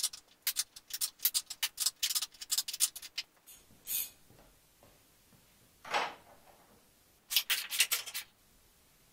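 Socket ratchet clicking in quick runs as a stubborn bolt at a car's front bar is worked, with a short scrape about six seconds in and another run of ratchet clicks near the end.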